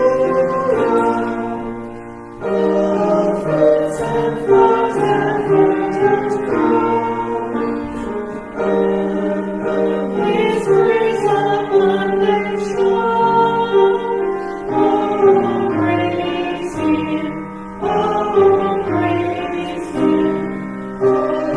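Church congregation singing a hymn together with instrumental accompaniment, the held chords changing every second or so.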